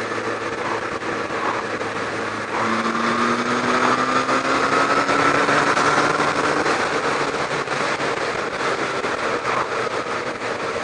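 Kawasaki ZX-12R's inline-four engine pulling under acceleration along the road, its note appearing about two and a half seconds in and rising slowly before levelling off. It runs over a steady rush of wind and road noise from riding at speed.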